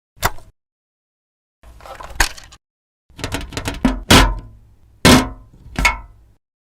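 A series of short hard knocks and clacks: a single click, a brief rustle with a sharp hit, a quick run of rapid clicks, then three louder knocks about a second apart. Dead silence lies between them, as with sound effects edited together.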